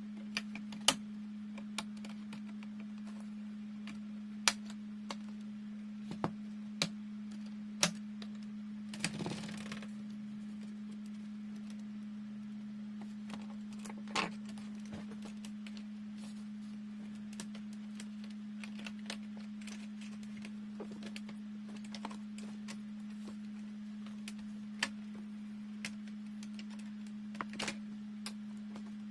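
Scattered light clicks and taps of laptop parts being handled, with a brief scrape about a third of the way in, over a steady low hum.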